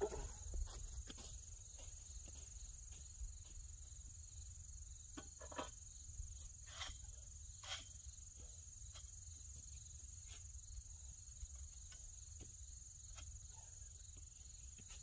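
Insects, crickets by the sound of it, trilling steadily at a high pitch, over a faint low rumble with a few scattered ticks.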